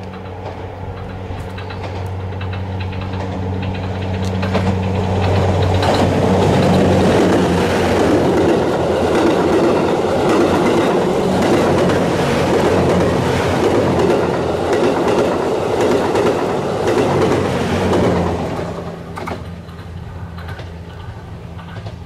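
JR West 87-series TWILIGHT EXPRESS Mizukaze, a diesel-hybrid sleeper train, passing at about 69 km/h. Its engine hum and the clatter of its wheels on the rails build up, are loudest through the middle, and die away about 18 seconds in.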